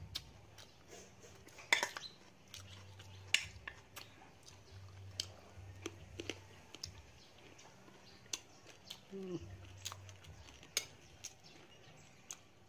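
Wooden spoon clicking and tapping against a plate of stir-fried duck: light, sharp, irregular clicks roughly once a second, over a low hum that comes and goes.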